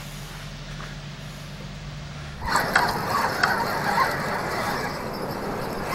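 A faint steady low hum, then, about two and a half seconds in, a sudden louder rough noise with scattered splashes: a hooked fish thrashing in the shallows as it is reeled in on a spinning rod.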